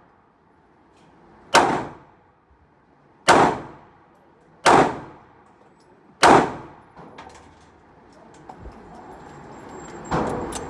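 Four handgun shots about a second and a half apart, each sharp crack followed by a short decaying ring, then a fainter shot near the end.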